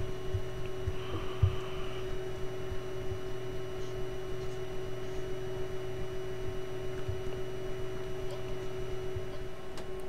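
Steady electrical hum with a faint noise floor and a few short low knocks now and then.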